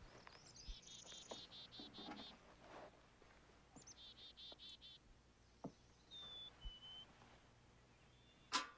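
Faint birdsong: a songbird trills twice in fast runs of repeated high notes, with a few short, level whistled notes between. A short sharp knock stands out just before the end.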